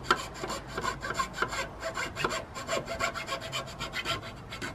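Hand saw cutting through a long wooden batten, with quick back-and-forth strokes rasping on the wood.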